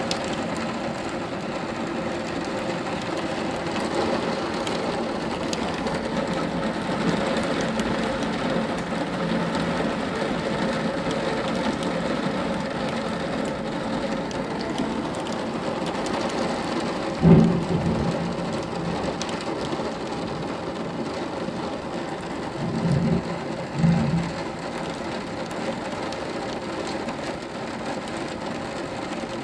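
Torrential rain pouring down on roofs and gardens during a thunderstorm, a steady dense hiss. A short low thump comes a little past halfway, and two more follow close together about three quarters of the way in.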